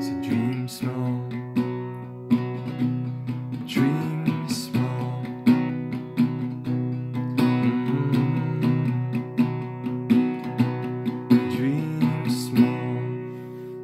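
Acoustic guitar strumming chords in the instrumental ending of a song, with no singing, gently fading toward the end.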